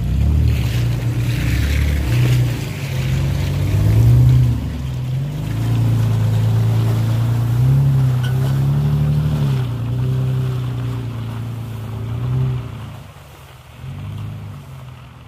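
Pickup truck engine working on an off-road trail, its pitch rising and falling with the throttle. The engine eases off near the end.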